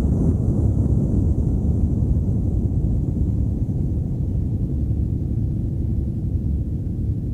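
Sound effect of a deep, steady rumble that slowly fades.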